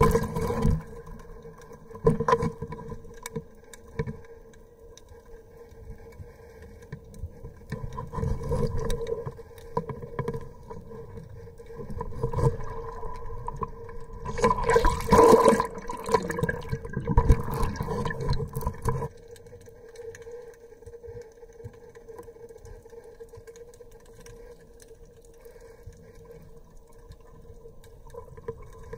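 Underwater audio of a diver's exhaled bubbles gurgling past the camera housing in several surges, the longest and loudest about halfway through, over a steady low hum.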